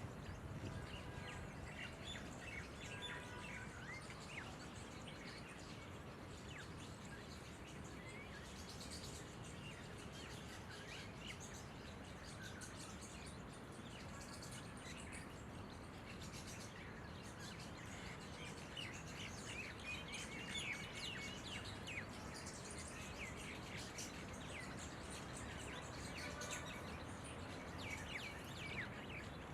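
Red-vented bulbuls calling: a scatter of short chirps and whistled notes throughout, over a steady low background rumble.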